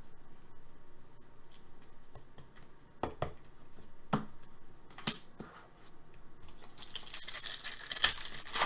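Trading cards and their packaging being handled: a few separate light clicks, then a couple of seconds of crinkly rustling near the end.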